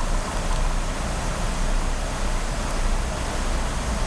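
Steady, even hiss with a low hum beneath it, unchanging throughout; no distinct handling clicks stand out above it.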